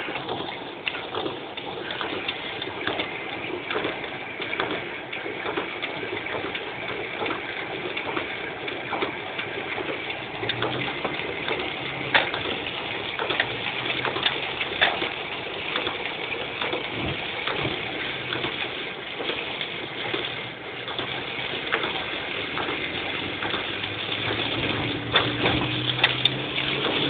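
Heavy rain drumming on a car's roof and windshield, heard inside the moving car, with scattered sharp taps of drops and tyres hissing through water on the road. A low engine hum comes in about a third of the way through.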